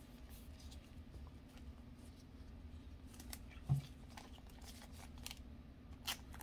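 Faint rustling and light scraping as trading cards are slid into soft clear plastic sleeves by gloved hands, with a soft knock about three and a half seconds in. A faint steady low hum sits underneath.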